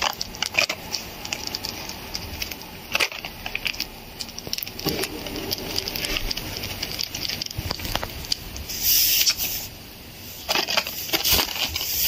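Small pet parrot nibbling and tugging at a hoodie drawstring and its metal tip close to the microphone: a steady run of small crackly clicks, with louder rustles about nine seconds in and near the end.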